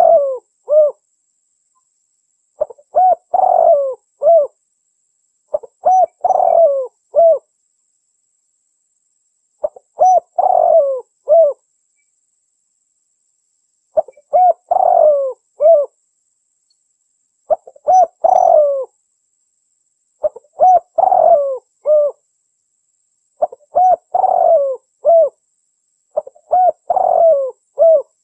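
Spotted dove cooing: a phrase of several coos, about a second and a half long, repeated every three to four seconds with silence between.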